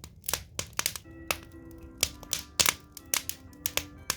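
Burning firewood crackling, with irregular sharp pops several times a second. From about a second in, soft music notes play underneath.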